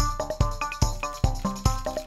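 Background music with a steady drum beat, about two and a half beats a second, and a melodic line over it.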